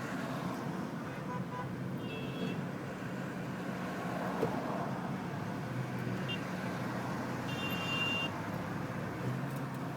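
Steady car engine and road noise with two short high-pitched horn beeps, one about two seconds in and one near eight seconds.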